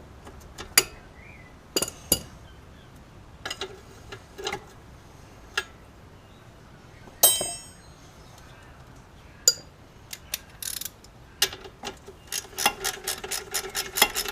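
Sharp metal clinks of hand tools, sockets and bolts being handled during suspension work, with a quick, even run of clicks near the end.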